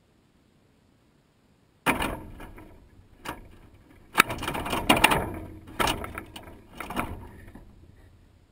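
Blue jay landing on a wire-mesh peanut feeder right at the microphone: a sudden clatter about two seconds in, then a run of rattling, scraping knocks of bird and peanuts against the metal mesh as it feeds. The clatter stops about a second before the end.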